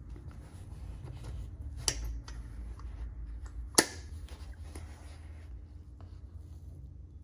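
Soft nappa-leather handbag being handled and turned by hand: light rubbing and rustling, with two sharp clicks about two seconds apart, the second the louder.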